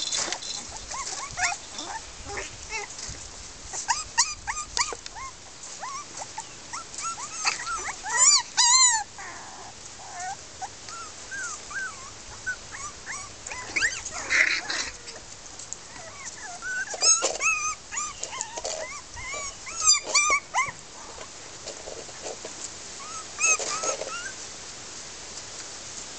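Miniature Pinscher puppies whining and yipping in short, high-pitched cries that come and go, with a few louder clusters of cries.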